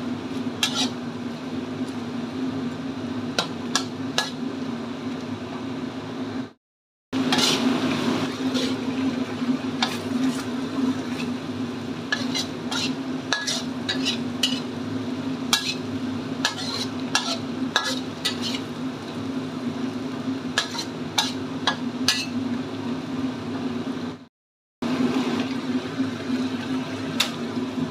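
Metal spatula stirring and scraping tomato sambal in a steel wok: the sauce sizzles, with sharp clicks and scrapes of the spatula against the pan over a steady low hum. The sound cuts out briefly twice.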